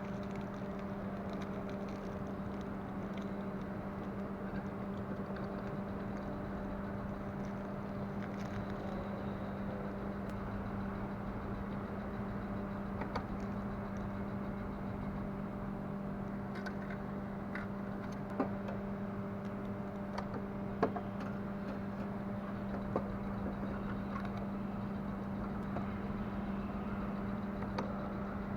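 Steady machine hum, a low even drone, with a few faint clicks and taps in the second half.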